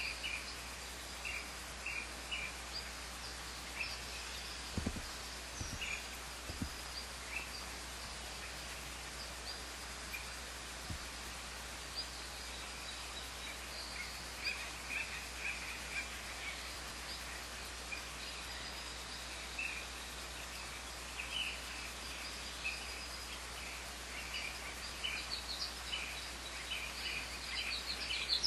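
Scattered short, high chirps of small birds over a steady hiss and a constant low hum.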